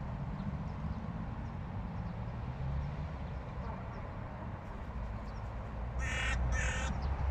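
Hooded crow giving two harsh caws in quick succession about six seconds in, over a steady low rumble.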